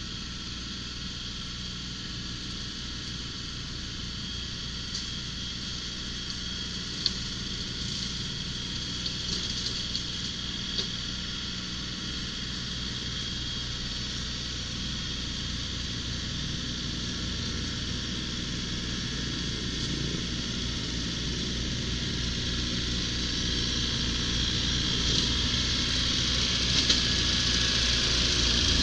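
John Deere compact tractor's diesel engine running steadily and growing louder as the tractor drives up close, with a few short clicks along the way.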